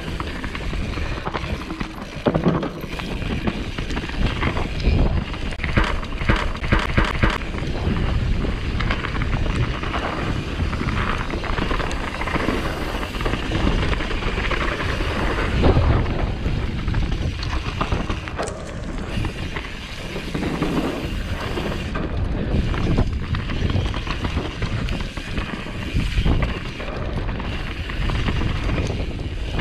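Downhill mountain bike descending a rough track, heard from an onboard action camera: a continuous rumble of tyres and wind on the microphone, with rapid clattering knocks from the bike over bumps, thickest about six to seven seconds in.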